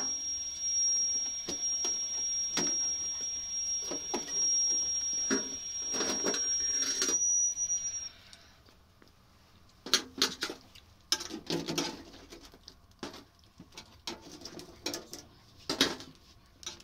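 A metal spoon scraping and tapping on steel trays as fried flatbreads are lifted from one tray to another, giving short clinks and knocks. A steady high-pitched whine over a hiss runs until about seven seconds in and then stops, leaving only the clinks.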